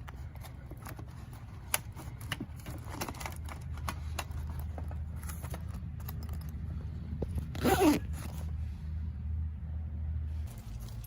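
Scattered clicks and scrapes of hands handling tools or parts, over a steady low hum that stops shortly before the end. One louder scraping rattle comes about three-quarters of the way through.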